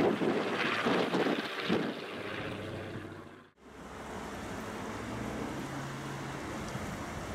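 Canadair amphibious water bomber's twin propeller engines droning overhead, with wind gusting on the microphone in the first couple of seconds. The sound drops out briefly about halfway through and comes back as a steady, more distant drone.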